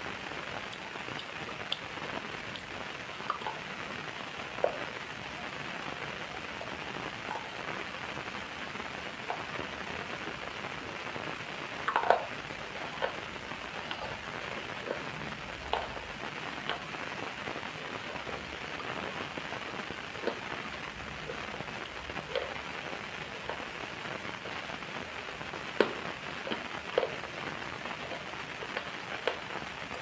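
White foam held in the mouth close to a clip-on microphone, fizzing and crackling: a steady hiss dotted with small sharp pops, with a stronger pop near the middle.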